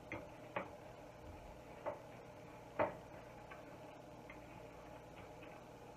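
Spoon knocking against a glass mixing bowl while stirring batter: a few light, irregular clinks, four clearer ones in the first three seconds, then fainter ones.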